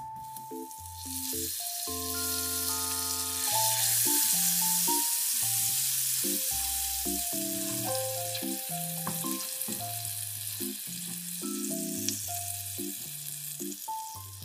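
Egg-in-bread toast frying in butter in a nonstick pan: a steady sizzle that grows louder about two seconds in and eases off near the end. Light background music plays underneath.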